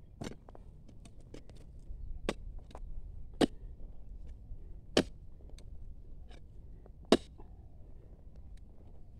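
A steel digging bar jabbed into dry, stony soil to loosen a bidara sapling's roots: about five sharp strikes a second or two apart, the loudest three in the middle, with smaller clicks of grit and stones between.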